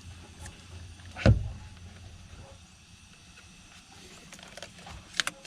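Hand work on car interior parts: one loud, dull thump about a second in, then scattered light clicks and a quick double click near the end.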